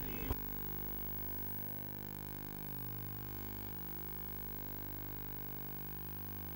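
A steady electrical hum made of several even tones, with no other sound over it.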